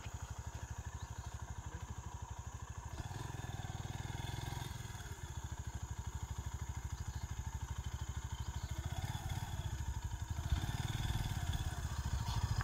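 Motorcycle engine running steadily while riding, with an even, rapid low putter from its firing.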